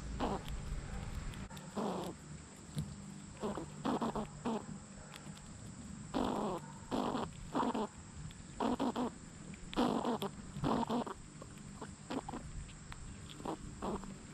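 A squirrel giving short, breathy calls, some single and some in quick runs of two to four, with pauses of a second or more between them.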